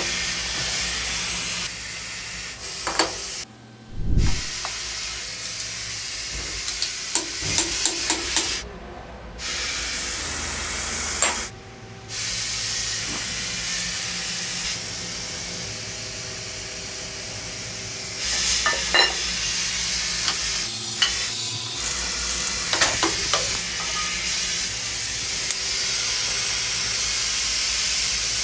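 Steady hissing machine-shop noise that jumps in level at several cuts, with scattered metallic clicks and knocks as steel machine vises and a dial indicator are handled on a CNC mill table. A heavier thump comes about four seconds in.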